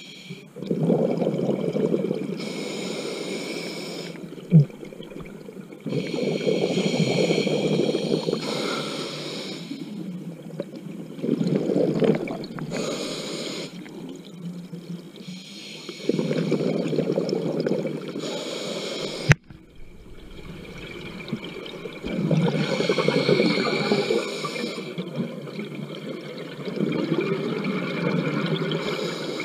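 Scuba diver breathing through a regulator underwater: a hissing inhale, then a long bubbling exhale, repeating about every five to six seconds. Two sharp clicks, one about four seconds in and a louder one about two-thirds through.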